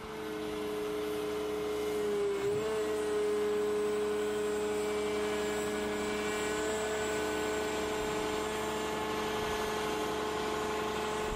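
Volvo C-Series wheeled excavator's engine running steadily while its hydraulics lower the boom and arm into the transport position; the pitch dips briefly about two seconds in.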